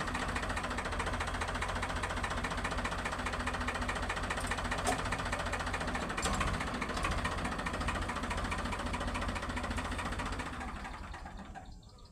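Farmtrac tractor's diesel engine running steadily while pulling a flat trailer at low speed, fading away near the end.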